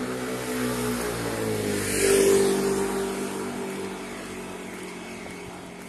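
A motor vehicle driving past: engine and tyre noise grow louder to a peak about two seconds in, then fade away.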